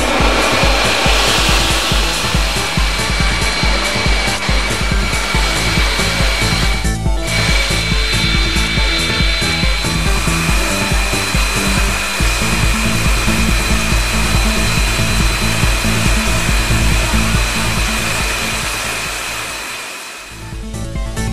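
Electronic background music with a steady driving beat, over the steady rushing hiss of an oxy-fuel cutting torch's flame. The sound dips and fades out briefly near the end, then the beat comes back in.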